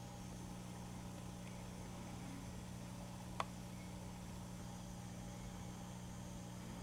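Steady low electrical hum over a faint hiss, with a single sharp click about halfway through.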